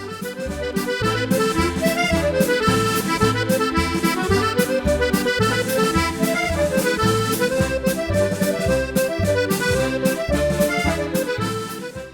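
Accordion playing a Scottish reel: a quick running melody over a steady, evenly pulsing bass-and-chord accompaniment. It fades in over the first second and fades out near the end.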